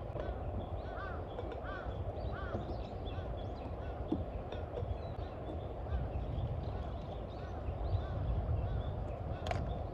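Birds calling repeatedly in short arched chirps over a steady low rumble, with a single sharp click near the end.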